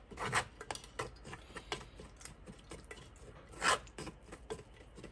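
Wooden spoon scraping and pressing blended oat and purple sweet potato pulp through a fine wire-mesh strainer: a quick run of short rasping scrapes, two of them louder. This is the straining of the pulp out of the atole.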